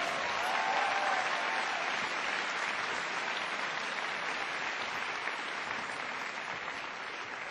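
A large audience applauding, the clapping slowly dying down.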